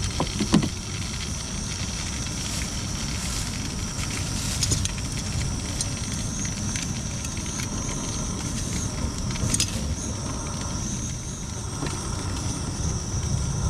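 Crappie fillets sizzling steadily in a hot pan greased with spray oil while they blacken, over a steady low rumble, with a couple of light clicks.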